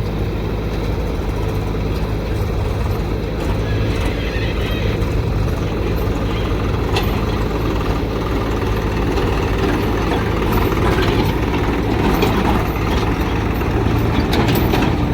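Heavy diesel engines of a backhoe loader and tractors running steadily at a low, even pitch, with a few faint clicks and knocks over the top.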